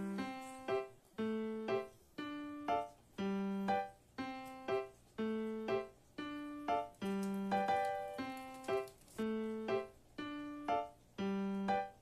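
Background music: a simple keyboard tune of short, evenly spaced notes, about one pair of notes a second.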